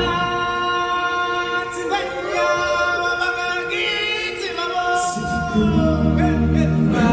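A group of singers singing long, held notes in harmony, with pitches sliding between them. The low bass of the backing music drops out and comes back in about five and a half seconds in.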